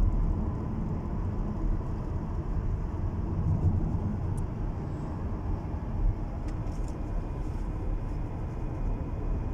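Steady low rumble of road noise inside the cabin of a 2017 Lexus cruising along a highway.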